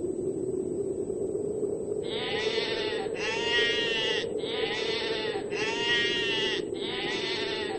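A flock of sheep bleating, about five long, quavering bleats one after another starting about two seconds in, over a steady low background noise.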